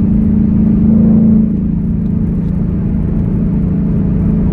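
2021 Ford Mustang GT's 5.0-litre V8, fitted with an H-pipe and factory mufflers, droning steadily at highway cruise. The drone eases slightly about a second and a half in.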